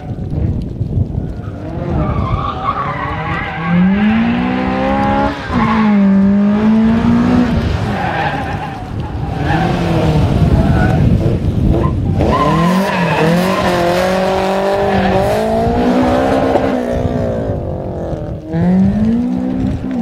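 Honda Civic hatchback's four-cylinder engine revved hard, its pitch climbing sharply several times and dropping back as the throttle is worked, with tyres squealing on the tarmac.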